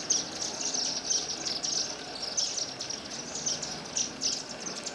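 Small flock of Indian silverbills giving high, thin chirping calls. The short chirps come in quick, uneven groups, two or three groups a second.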